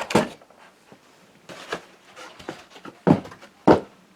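Cardboard box and printer packaging being handled, with a few dull knocks and scuffs. The two loudest come close together near the end.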